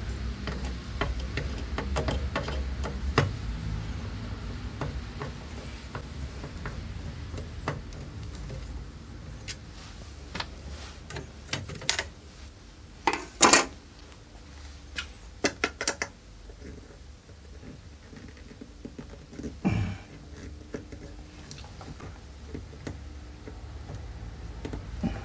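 Scattered metallic clicks, clinks and knocks from parts of a sliding miter saw, its metal fence and table fittings, being handled and adjusted by hand. The loudest come as a couple of short clatters about halfway through and another knock near the end, over a low hum that fades in the first few seconds.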